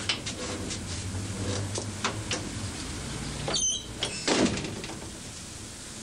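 Front door with a glass panel being unlatched and opened as people step through: latch clicks and footsteps, a short high squeak about halfway through, and a louder knock just after.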